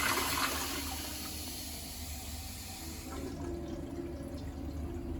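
Toilet flush tailing off: rushing water fades over the first second or two, leaving a quieter steady flow of water as the toilet refills.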